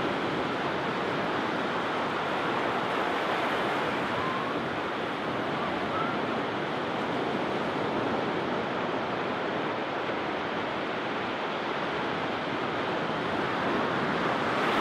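Sea waves breaking and washing up a sandy beach: a steady surf hiss.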